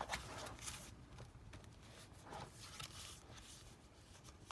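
Pages of a handmade junk journal being turned by hand: faint paper and cardstock rustling, with a light tap at the start.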